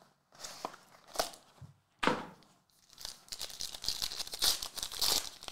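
A few short rustles, then from about three seconds in the continuous tearing and crinkling of a trading-card pack's plastic wrapper being pulled open by hand.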